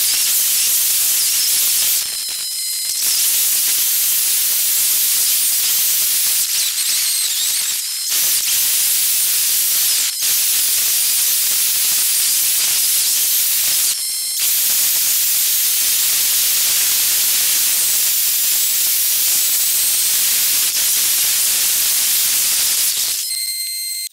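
Steady high hiss of wind and road noise on a camera riding on a moving motorcycle, broken by a few brief dips in which short whistling tones sound. It cuts off near the end as the bike comes to a stop.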